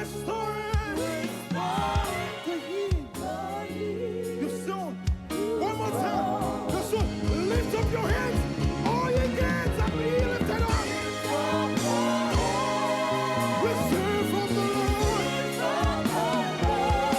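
Live gospel music: a voice singing melodic runs over a band with held low notes and a drum beat that fills out about five seconds in.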